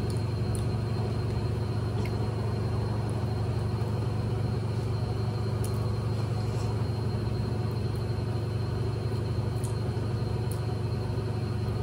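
A steady low hum under an even background noise, with a few faint clicks scattered through it.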